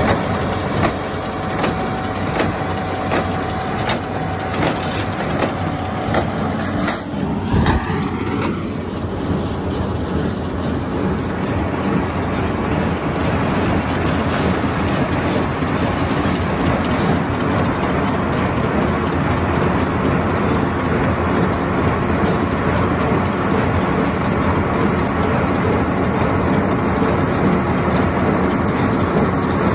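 Tractor engine running under load with a New Holland small square baler working behind it: a steady engine drone mixed with the baler's continuous mechanical clatter.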